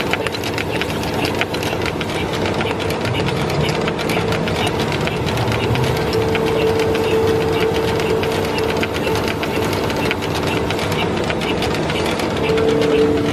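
Handtmann VF100B vacuum filler running: a steady machine hum with dense, fast ticking, and a second, lower tone joining near the end.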